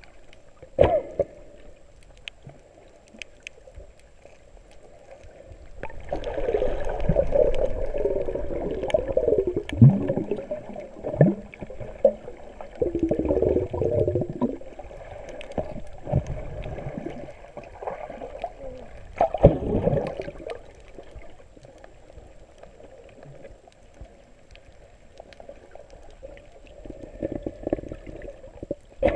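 Water gurgling and sloshing around a camera held just under the sea surface, heard muffled underwater. It comes in uneven surges, loudest from about six to fifteen seconds in and again briefly around twenty seconds.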